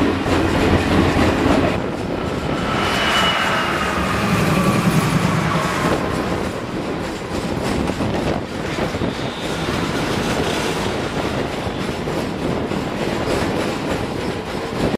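Canadian Pacific diesel freight train passing close alongside: the locomotives go by in the first few seconds with a few high tones sliding down in pitch, then double-stack container cars rumble and clack past steadily.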